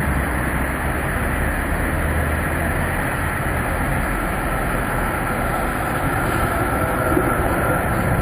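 Electric street tram approaching and drawing up alongside a stop platform, its running noise over steady city traffic. A faint whine comes in over the last few seconds as the tram comes close.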